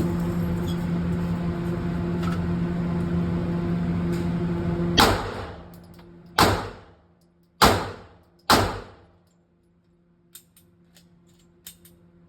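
Four pistol shots from a 9mm Glock-pattern pistol, in an uneven string about a second apart, each ringing out briefly. Before them a steady droning hum runs for about five seconds.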